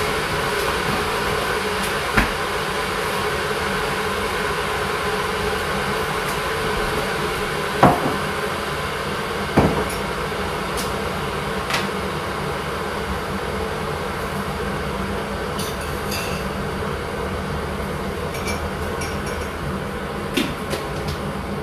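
Kitchen clatter while coffee is made: a few sharp knocks and clinks of cups, spoons and containers, the loudest about 8 and 10 seconds in, over a steady whirring hum.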